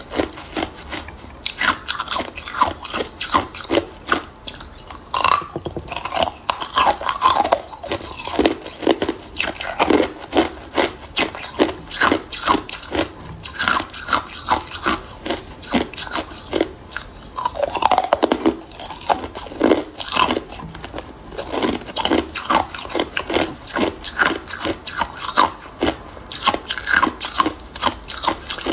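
Hard ice cubes being bitten and chewed: dense, irregular crunching and cracking, several sharp cracks a second with brief pauses.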